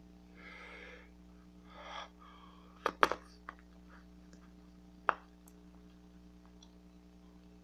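Bubble gum being blown with two breathy puffs, then the bubble popping with a sharp snap about three seconds in, followed by another sharp snap about two seconds later.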